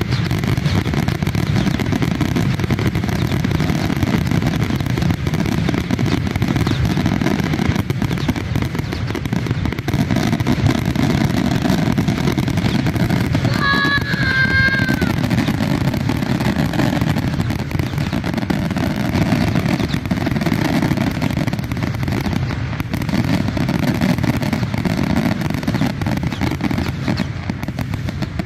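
A dense fireworks barrage: many aerial shells bursting in quick succession, so the bangs and crackling merge into one continuous din. A child gives a short roar about halfway through.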